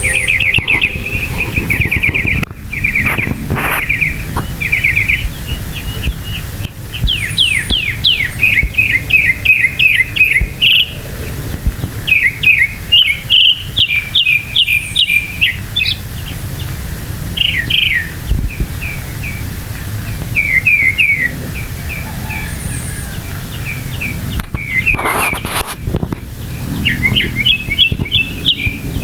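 Northern mockingbird singing: a long run of varied phrases, each note repeated quickly several times, with short pauses between, over a steady low rumble.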